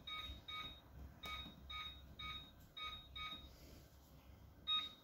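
Tefal Easy Fry & Grill air fryer's control panel beeping with each press of the plus button as the timer is stepped up to 40 minutes: a run of short beeps about two a second, then a pause and one louder beep near the end.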